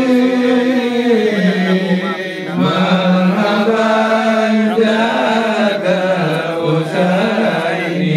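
Voices chanting in long, held notes, the pitch stepping down about a second in.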